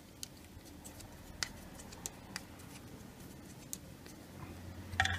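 Faint, scattered light clicks and taps from hands handling tools and the phone under the car. Near the end a low hum rises and a quick cluster of louder clicks follows.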